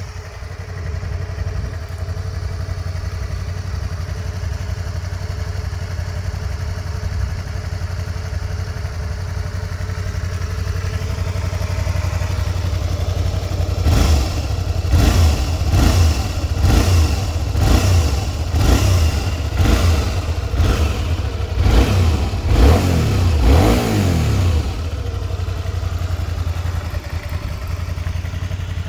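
1987 Honda Spada (VT250, MC20) 250cc V-twin idling through its stock exhaust. About halfway through it is revved in a quick run of throttle blips, each rev rising and dropping back, for about ten seconds, then it settles back to idle.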